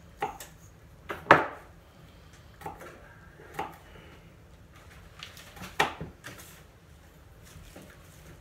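Kitchen prep noises: about six separate sharp knocks and clicks of a knife and utensils on a cutting board and countertop, the loudest about a second in and another near six seconds.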